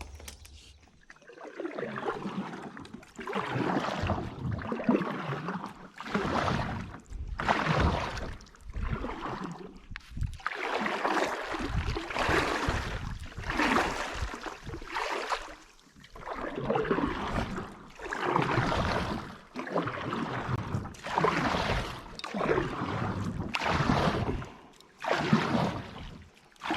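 Kayak paddle strokes: the paddle blades dipping and pulling through the water in a steady rhythm, one swishing splash a little more than a second apart.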